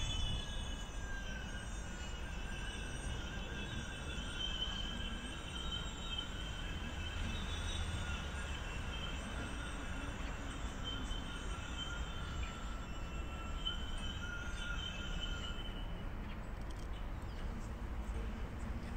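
Outdoor ambience: a steady low rumble with several thin, high whining tones that waver and fade in and out.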